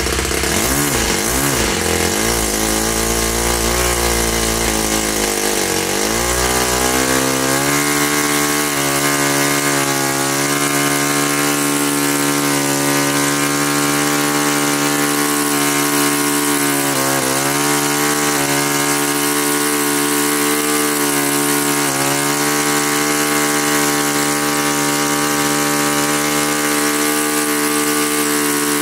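Small Saito four-stroke glow engine running on a test stand. Its revs waver and climb over the first several seconds, then hold steady, with brief dips about halfway and two-thirds of the way through.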